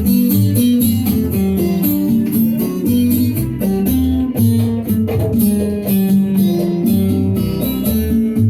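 Cuban son music: plucked string instruments play a melody over a moving bass line, with steady percussion.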